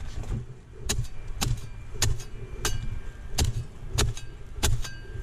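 A corvellón pruning blade hacking at a Canary Island date palm's frond bases: about seven sharp chopping strokes at a steady pace, a little under two a second, each with a dull thud.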